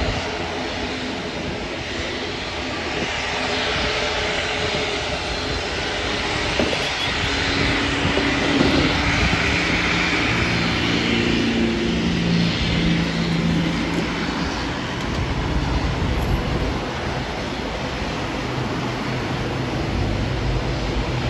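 Airplane engine noise, steady and continuous, with engine tones that fall in pitch through the middle.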